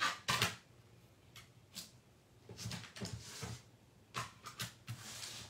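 A scattering of light knocks, clacks and rustles from handling plastic die-cutting plates and paper, as a card piece is set up to go through a die-cut machine.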